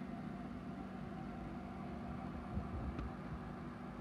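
Steady low machine hum in the room, with a soft knock about two and a half seconds in and a faint click about three seconds in.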